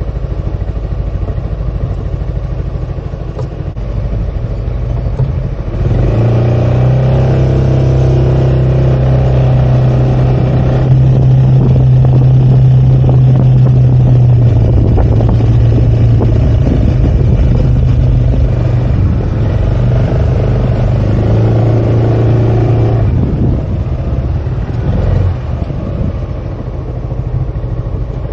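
Yamaha XMAX 300 scooter's single-cylinder engine running on the move. It pulls harder and louder from about six seconds in and eases off again after about twenty-three seconds.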